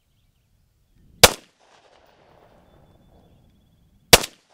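Two rifle shots from a 16-inch-barrelled AR-15, about three seconds apart. Each is a sharp crack followed by a short echo dying away.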